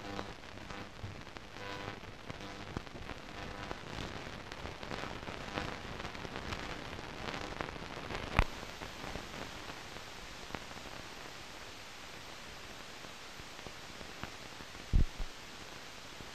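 Hiss and crackle of an old 1930s film soundtrack, with faint indistinct sound under it in the first half. A sharp click comes about eight seconds in, after which only a steady hiss remains, broken by a couple of thumps near the end.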